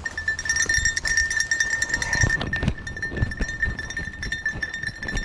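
Footsteps walking over dry grass and leaves, about two or three steps a second, with a steady high-pitched ringing tone running through them.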